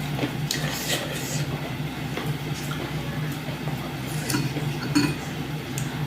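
Light clinks and taps of dishes and utensils during a meal, several scattered knocks over a steady low hum.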